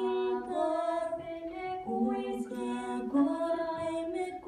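Background music of held, pitched notes changing about once a second, with a few light percussive hits.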